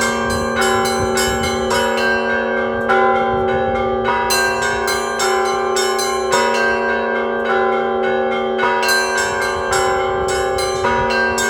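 Cathedral bells rung together in an ensemble peal (zvon): smaller bells struck in a quick, continuous pattern over the long ringing hum of a lower bell.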